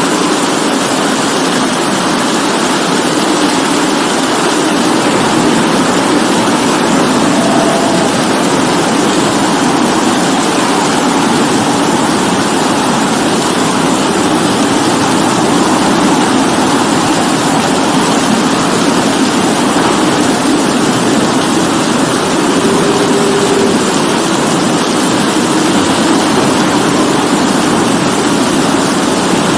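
Steady rain falling, an even, continuous hiss with no break or change.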